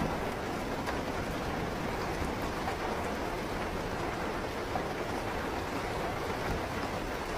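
Steady rain falling, a continuous even hiss of drops with a full low rumble and no separate drips standing out.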